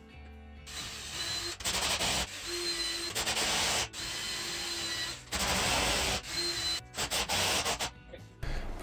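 Cordless drill-driver driving screws through PVC pipe into a melamine blast gate, in several short runs of a second or so, the motor's whine sounding under the grinding of each screw.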